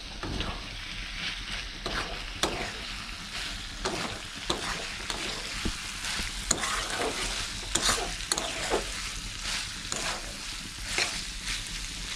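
Chicken pieces in a spicy masala sizzling in a kadai on a gas stove, stirred with a spatula that scrapes against the pan in irregular strokes about one or two times a second.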